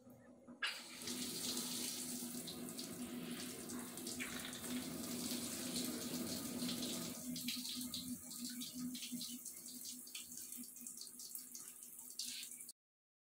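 Water running from a tap-mounted instant electric water heater into a stainless steel sink, starting about half a second in, running a little softer after about seven seconds, and cutting off suddenly near the end.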